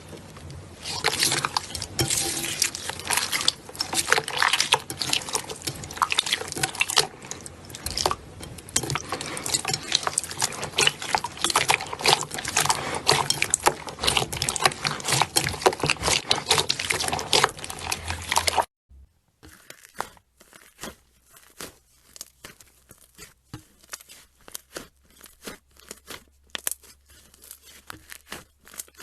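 Slime being squished and worked by hand: dense, wet crackling and popping. About two-thirds of the way through it cuts off suddenly, and a quieter run of sparser clicks and pops follows.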